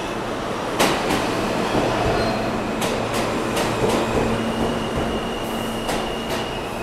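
New York City subway train running into the station beside the platform: a steady rumble of the cars, with sharp clacks of the wheels over the rail joints. A steady high whine joins about four seconds in.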